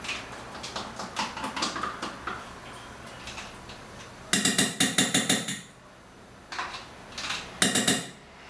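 A spoon scraping and knocking mascarpone cheese out of its tub into a stainless steel mixing bowl. There are light clicks at first, then a burst of rapid knocking about four seconds in and a shorter burst near the end.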